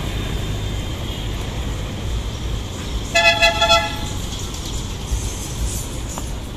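A vehicle horn sounds one short toot about three seconds in, over a steady low rumble of street traffic.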